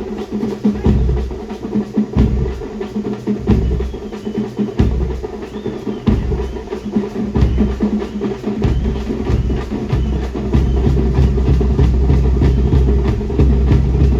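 Loud music with heavy drumming and a deep bass beat, the kind of band music played for a ghoda naach (horse dance), with a faint wavering high melody line over the drums.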